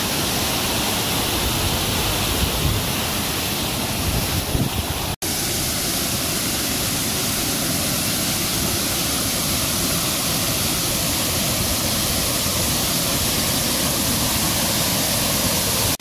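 Steady rush of a small waterfall splashing into its pool, with a momentary break in the sound about five seconds in.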